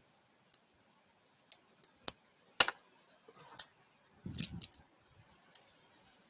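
Scattered sharp clicks and taps, about eight of them at uneven spacing, with a short soft thump about four and a half seconds in.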